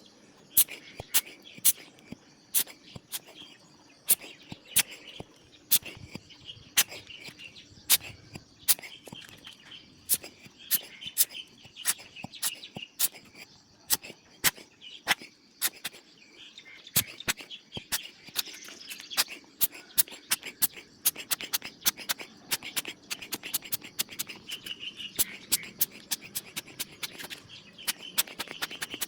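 Sharp clicks, irregular at two to four a second, over faint bird chirping.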